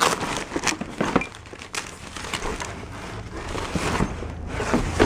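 Rummaging through a box: rustling and crinkling with short knocks and clicks of items being handled and moved.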